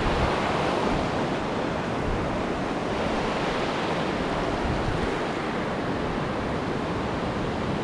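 Surf washing in over the shallows: a steady rush of small breaking waves and foam.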